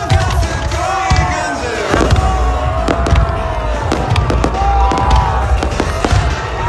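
Fireworks display going off: a rapid string of bangs and crackles over a continuous low rumble of bursting shells, with several rising-and-falling whistles.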